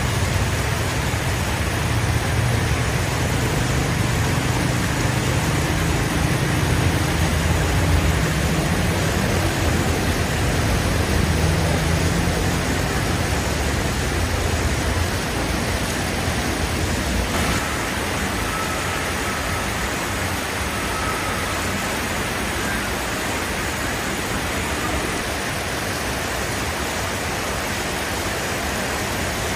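A motor vehicle engine running over a steady hiss. The low engine rumble is strongest through the first half and fades after about seventeen seconds.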